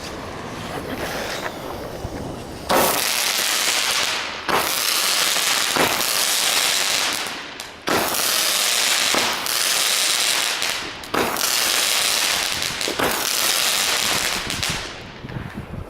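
Weco 'Feuersturm' 7-shot firework battery firing: about seven sharp launches, roughly one every one and a half to two seconds, each followed by a dense crackling that carries on until the next shot and dies away near the end.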